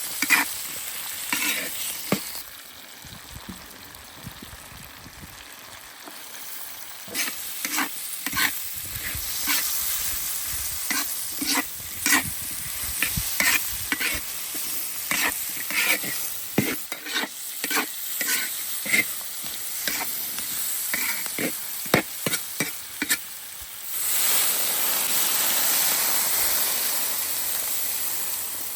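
Cured pork stir-frying in its own rendered lard with dried chillies, ginger and garlic in a wok: a steady sizzle, with a metal spatula scraping and clacking against the wok many times. Near the end the sizzle turns suddenly louder and denser.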